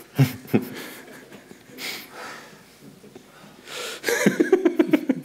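A man laughing: breathy chuckles, then a run of quick, rhythmic laughs near the end.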